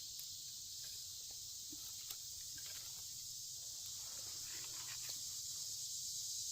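Steady high-pitched insect chorus, with a few faint scattered clicks and snaps.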